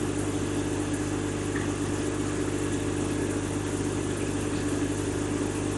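Steady machine hum with several constant low tones, unchanging throughout: background noise from a running appliance or fan.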